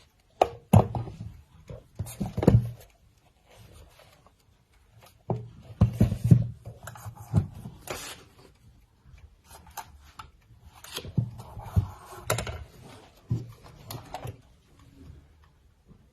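Old alarm clocks being handled: irregular knocks, clacks and rubbing as they are picked up, turned over and set down on a hard surface.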